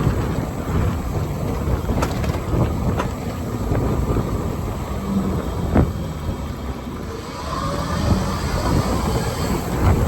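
Ride noise from an E-Z-GO RXV Elite electric golf cart under way: wind buffeting the microphone over a steady road rumble, with a few scattered knocks and rattles as it goes over bumps.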